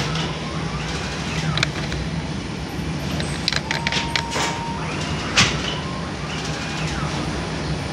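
Automated flatbread bakery machinery, a rotary oven and dough sheeter, running with a steady low hum, broken by scattered clicks and knocks of metal and bread being handled. A short steady tone sounds twice, about three seconds in and again near the end.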